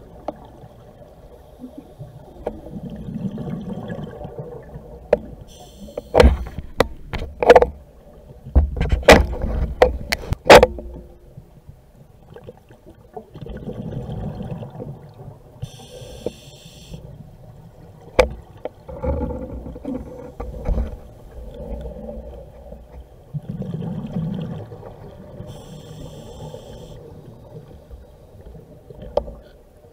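Scuba diver breathing underwater through a regulator: a rush of exhaled bubbles and a hiss on the inhale, the cycle repeating about every ten seconds. Sharp knocks and clicks, the loudest sounds, come in a cluster a few seconds in and again about two-thirds of the way through.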